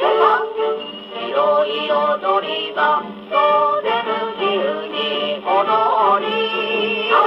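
A 1950 78 rpm record playing on a Columbia G-241 portable acoustic gramophone: a singer with band accompaniment, heard through the soundbox with a thin sound that has no deep bass or high treble.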